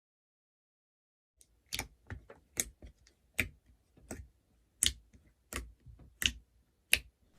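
Keyboard tapping: about a dozen sharp, separate clicks at an uneven typing pace, starting about a second and a half in.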